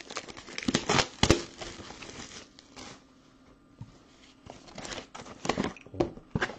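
Plastic shrink wrap being torn and crumpled off a box of baseball cards: a quick run of crackly rips and sharp crinkles, a short lull about three seconds in, then more ripping and crinkling near the end.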